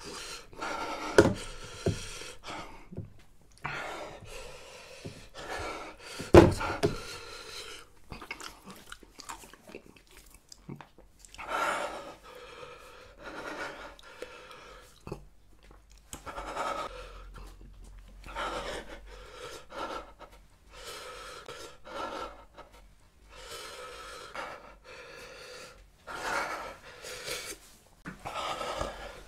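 A man panting hard through his mouth, a steady run of heavy breaths every second or two, from the burn of the super-hot Paqui One Chip. Two sharp knocks about one and six seconds in are the loudest sounds.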